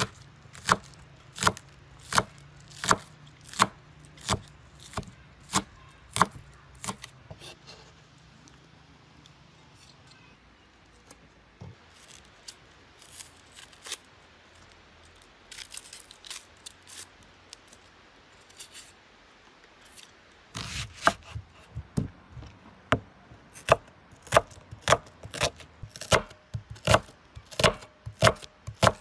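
Knife chopping food on a cutting board in steady, regular strokes. The chopping thins out to scattered light taps for a while midway, then resumes faster and louder about twenty seconds in.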